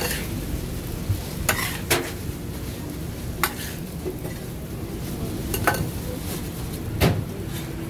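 Doner kebab meat being worked in a steel pan: a metal utensil scrapes and clicks against the metal about five times, sharp and irregular, over a steady background hum and the hiss of meat frying.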